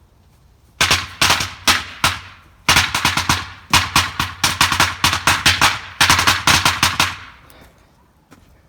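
Small firecrackers popping in rapid, irregular succession: dozens of sharp cracks starting about a second in, a brief lull around two seconds, then a dense run of pops that dies out about two seconds before the end.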